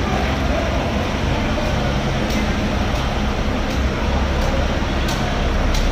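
Steady low rumble of background noise, with a few short, sharp clicks scattered through the second half.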